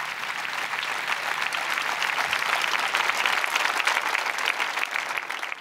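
Large audience applauding: many hands clapping together in a dense, continuous ovation that grows louder over the first couple of seconds.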